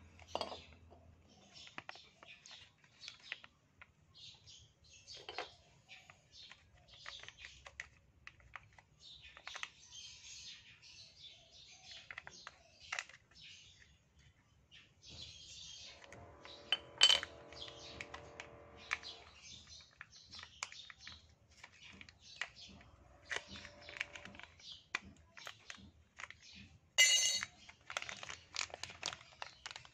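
Irregular light clicks, taps and clatters of small parts being handled during a motorcycle brake pad change, with a sharper metallic clink about halfway through and another near the end. A faint voice is heard around the middle.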